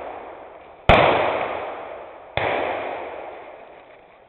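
Two blank-fire gunshots about a second and a half apart, each followed by a long echoing decay.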